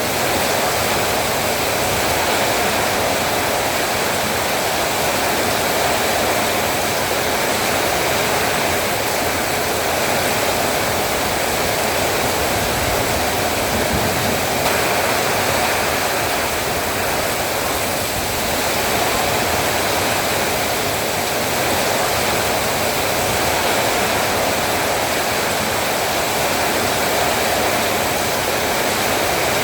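Heavy rain pouring steadily: a dense, even hiss that swells and eases slightly every few seconds.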